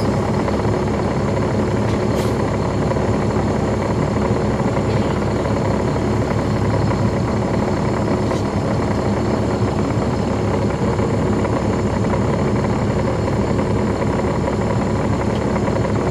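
A 2009 NABI 40-foot transit bus's Caterpillar C13 ACERT diesel engine, heard from inside the bus, running at a steady speed with no rise or fall in pitch. The engine cooling fans are off.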